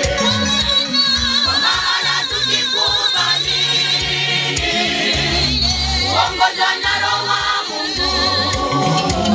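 A group of women singing a gospel song together, over a low bass line that moves in steps.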